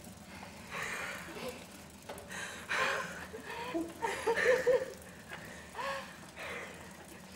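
Soft, breathy laughter: short giggles and gasping breaths in several irregular bursts, with the most voiced giggling about four seconds in.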